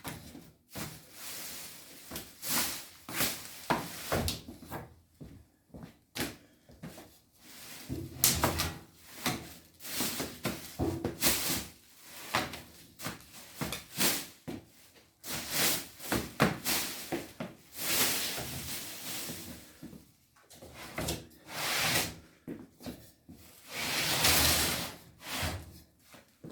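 Plastic packing wrap crinkling and tearing as it is pulled off by hand, in irregular rustling bursts with a few knocks of handling.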